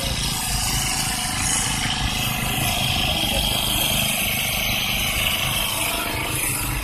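Small engine of a motorised rice-paddy weeding machine running steadily.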